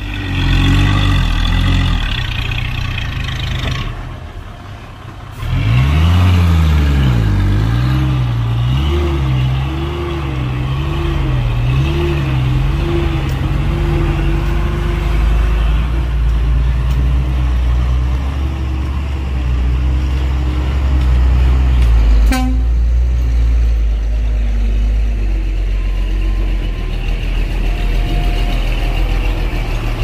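Heavy diesel engine of earthmoving machinery running under load. It fades briefly about four seconds in, comes back louder, and its pitch wavers up and down several times before settling to a steady note. A single sharp click comes about two-thirds of the way through.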